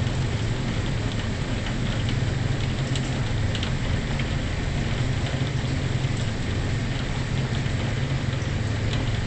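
Heavy rain pouring down onto a flooded paved lot: a steady hiss with a strong low rumble underneath and scattered ticks of drops.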